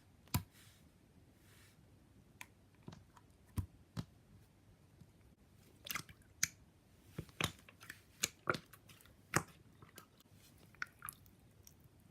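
Store-bought slime being squished and played with by hand, giving faint, irregular wet clicks and small pops.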